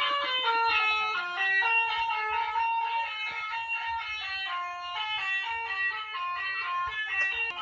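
Telolet bus horn playing a fast melody of steady notes that step up and down, several sounding together.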